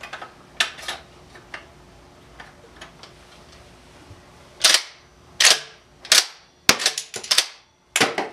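1953 Savage/Stevens 820B pump-action shotgun being worked by hand, cycling snap caps through the action. A few light clicks come first, then from about halfway through a series of sharp metallic clacks as the slide is racked, roughly one every half to three-quarters of a second. The shells are feeding and ejecting, which the owner calls working, with the cartridge stop bent so that it holds shells in the magazine.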